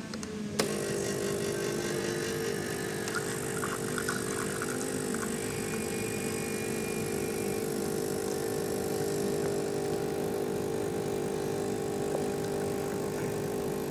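Getra SN-3035S espresso machine's pump kicking in about half a second in and running steadily with an even hum, dispensing extra water into the cup.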